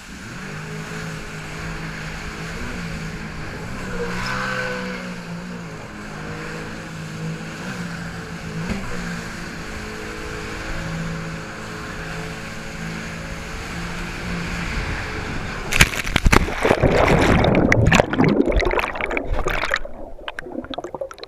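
Jet ski engine running steadily at speed over wind and water spray. About 16 seconds in, a sudden loud splash and churning water as the riders go into the lake, and near the end the sound turns muffled and bubbly underwater.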